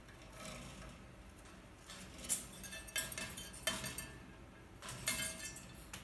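Metal clinks and rattles from a wire birdcage, a handful at irregular intervals, as a rose-ringed parakeet climbs onto and into it.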